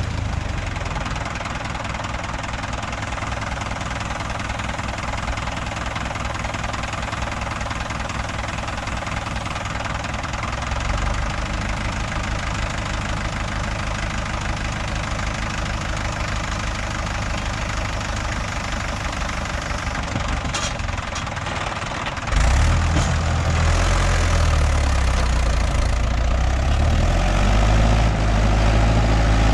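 Mahindra 585 XP tractor's diesel engine running steadily with a low pulsing clatter. About two-thirds of the way in it turns louder and deeper, working hard under load as the tractor pulls a heavy trolley with its front wheels lifting.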